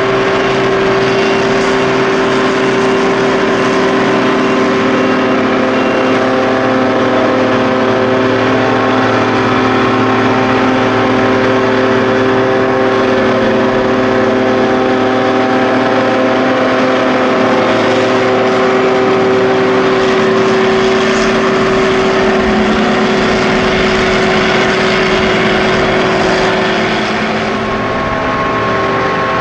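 John Deere 7300 self-propelled forage harvester running steadily while chopping maize: a loud, constant drone with a steady whine over it, dipping slightly near the end.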